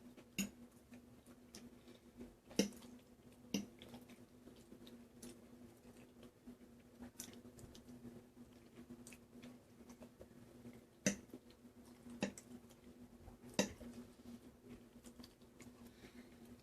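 Quiet chewing and mouth sounds of someone eating penne pasta in red sauce, with a few scattered sharp clicks. A steady low hum runs underneath.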